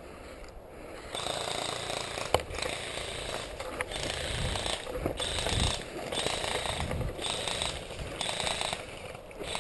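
Airsoft electric gun (AEG) firing a string of short full-auto bursts, each a rapid rattle with a motor whine under it, starting about a second in. There is also one sharp click.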